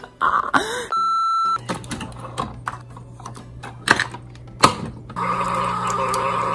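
Single-serve coffee brewer: a short beep about a second in, then its low steady hum with a few clicks and knocks. From about five seconds in it runs louder, with a steady hiss as coffee streams into the mug.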